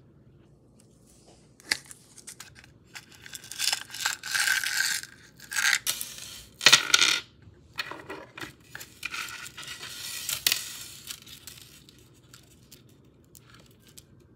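Rustling of paper in a small cardboard gift box and the jingle of metal ball-chain necklaces as they are lifted out, in a series of bursts with a few sharp clicks, loudest about seven seconds in.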